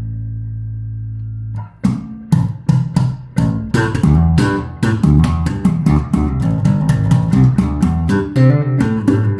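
Electric bass guitar, a luthier-built copy of a Fodera bass, played unaccompanied. A held note rings and fades, is stopped just under two seconds in, then a quick run of plucked notes follows.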